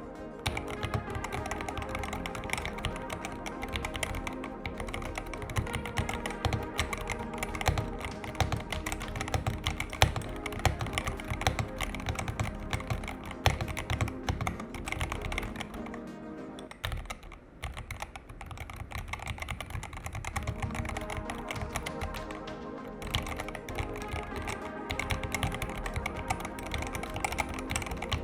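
Rapid typing on a Yunzii RT68 mechanical keyboard: a dense, irregular patter of key clicks, easing off briefly a little past halfway, over background music.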